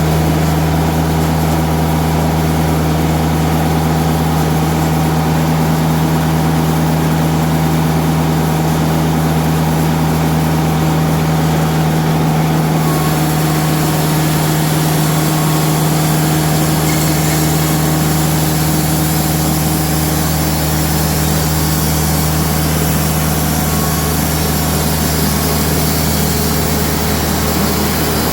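Diesel engine of a TimberKing bandsaw sawmill running steadily at a constant speed. About halfway through, a brighter high hiss joins and stays to the end.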